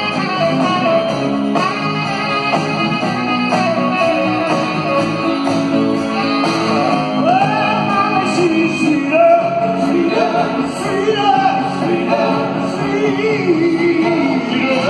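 Live rock band playing, electric guitars prominent over drums and keyboards, with singing.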